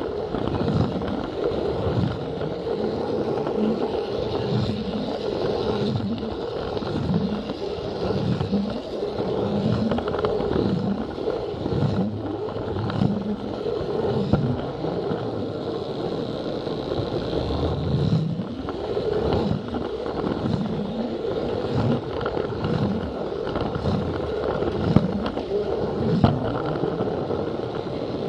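Plarail battery-powered toy train running along plastic track, heard from a camera riding on the train: a steady motor whine with a repeating clatter of the wheels on the track, about once a second.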